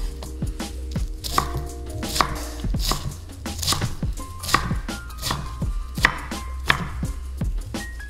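Knife chopping food on a cutting board: steady, evenly paced strokes, a little more than one a second.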